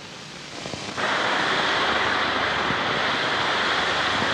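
Rushing water of a mountain waterfall cascading down a rocky stream, a steady hiss that comes in abruptly about a second in; before that only faint film hiss.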